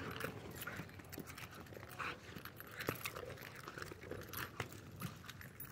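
A dog panting in quick, uneven breaths.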